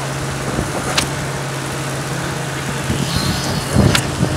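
Steady mechanical hum from a monkey lift building-material hoist, its winch machinery running while a loaded trolley hangs from the boom cable. Two sharp clicks come about a second in and near the end.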